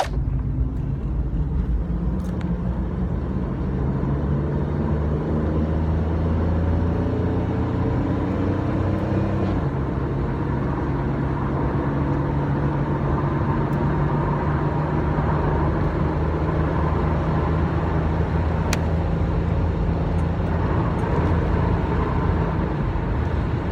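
1997 Camaro's 3.8-litre 3800 V6 pulling hard at full throttle, its note rising steadily for about nine seconds, dropping suddenly as the automatic transmission upshifts, then running on at a steady pitch. It pulls without stutter or hesitation, the cylinder misfire cured by replacing a cracked spark plug wire.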